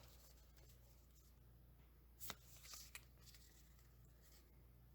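Near silence with faint handling of Pokémon trading cards: a soft click a little over two seconds in, a brief rustle, then another click about three seconds in.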